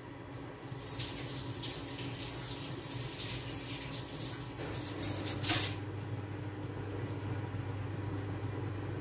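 Curry liquid in a lidded stainless-steel pot hissing and crackling as it comes up to the boil, with a louder surge about five and a half seconds in. A steady low hum runs underneath.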